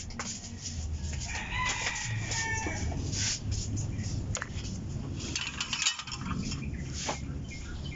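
A rooster crowing once, for about a second and a half, with scattered clicks and rustles of wires being handled.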